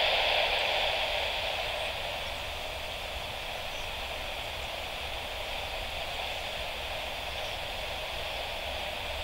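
Steady hiss of static from an airband radio receiver with the squelch open, coming on sharply just before and easing a little over the first two seconds.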